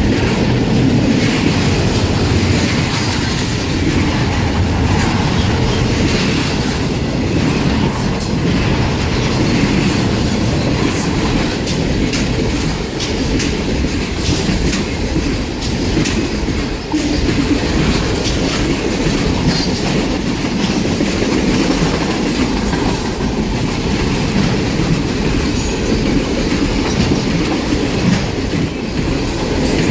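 Freight train cars rolling past steadily, with wheels clicking over rail joints and some wheel squeal over a continuous low rumble.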